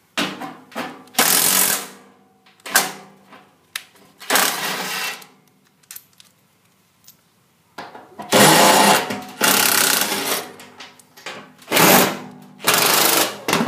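Bosch cordless drill with a socket running in about six short bursts, the longest ones near the end, as it backs the nuts off the blower motor's mounting arms.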